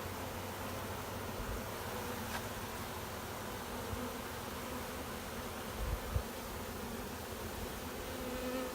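A swarm of honeybees buzzing steadily around the opened hive frames, with a couple of soft low thumps about six seconds in.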